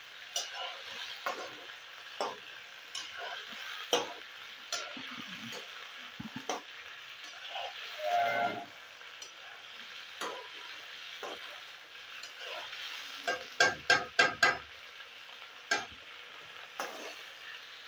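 Pieces of bam fish (spiny eel) frying in ghee in an iron karahi: a steady sizzle, with scattered clicks and scrapes as a metal slotted spatula turns them. A quick run of about five sharp knocks of the spatula on the pan comes a little past halfway and is the loudest thing, and there is a brief pitched sound about eight seconds in.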